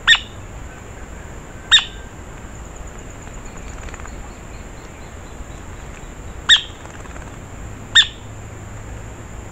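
Pale-legged hornero giving short, sharp single calls, four times, spaced a second or more apart. Behind them is a faint, steady high-pitched tone.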